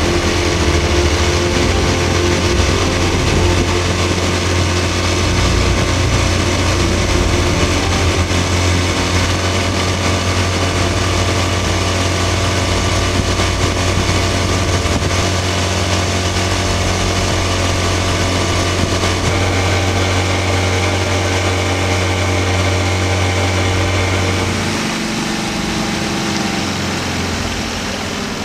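Outboard motor running steadily at cruising speed, pushing a small aluminium fishing boat across the water. It eases off near the end.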